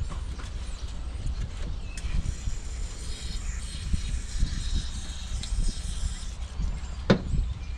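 Hands working an electrical connector on a Cummins ISX engine wiring harness: scattered light clicks and rattles of plastic and metal, with one sharp click about seven seconds in.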